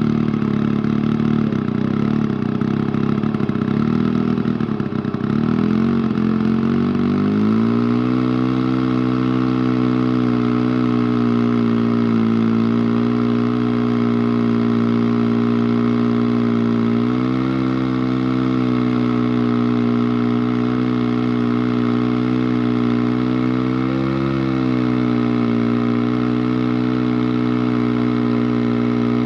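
Engine of a more than 90-year-old Rinco chainsaw running steadily. Its note is rougher at first, then settles and rises slightly about seven seconds in, with small swells in pitch later on.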